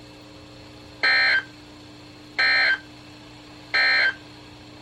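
Three short NOAA Weather Radio SAME end-of-message data bursts, evenly spaced about 1.3 seconds apart, signalling the end of the warning broadcast. A faint steady hum from the radio lies underneath.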